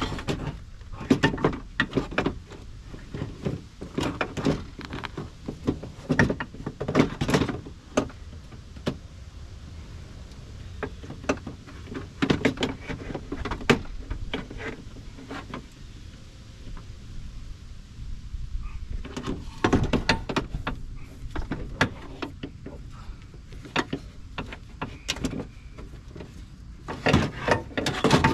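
Irregular metallic clunks, knocks and rattles of a power window motor and regulator being handled and fitted inside a car door's hollow inner panel, coming in clusters with quieter pauses between.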